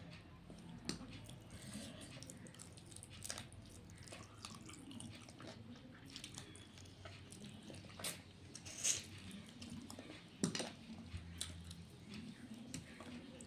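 A person chewing and eating with their hands, with wet mouth smacks and scattered clicks and a few sharper knocks from the plate.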